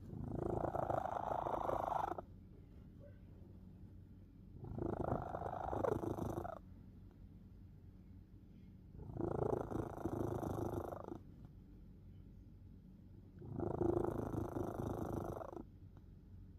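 Domestic cat snoring in its sleep: four long rasping snores, one about every four and a half seconds, with a faint low rumble between them.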